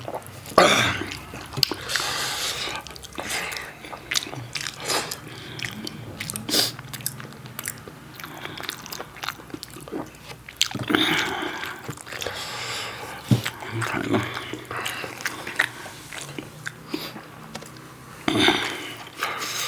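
Close eating sounds: chewing and mouth smacking through a meal of rice and curry, with many short wet clicks.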